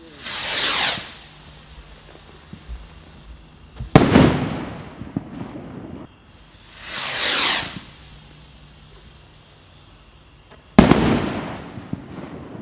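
Two Hallmark Sky Hunters firework rockets, one after the other. Each goes up with a whoosh that falls in pitch and bursts about three seconds later with a sharp bang, followed by a fading crackle.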